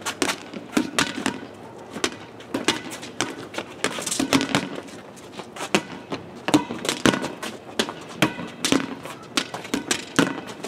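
A ball smacking against a cinder-block wall and bouncing on asphalt during a wall ball game, mixed with sneakers scuffing and running on the pavement. The knocks come sharp and irregular, several a second.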